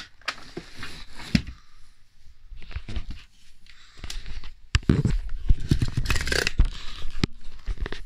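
Handling noises from assembling a canister vacuum cleaner: the hose connector and metal extension wand being fitted together, with plastic clicks, knocks and scrapes. The handling gets louder and busier in the second half. The vacuum motor is not running.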